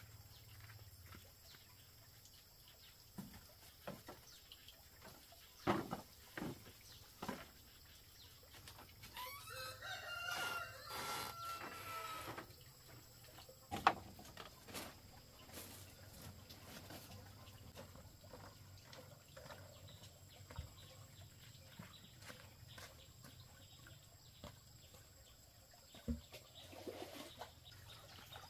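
A rooster crows once near the middle, a single long call of about three seconds, among scattered sharp knocks and taps.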